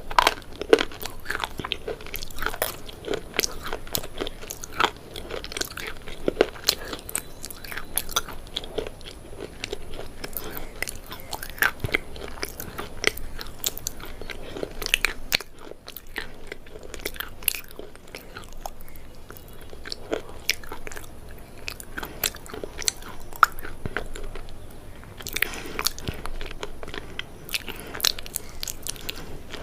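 Close-up biting and chewing of something dry and crunchy: a steady run of sharp crunches, with a brief pause about halfway through.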